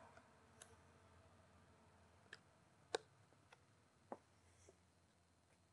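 Near silence with several faint, irregular clicks, the loudest about three seconds in.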